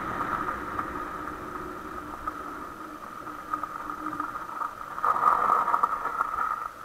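Honda XR150L's single-cylinder engine running as the bike rolls along a dirt track. Its sound eases off over the first few seconds, grows louder and rougher about five seconds in, then drops away suddenly near the end.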